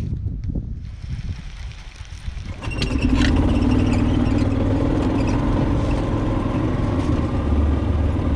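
Golf cart driving along: a steady low drone from its motor and drivetrain, with rushing noise, coming in suddenly about three seconds in and holding steady.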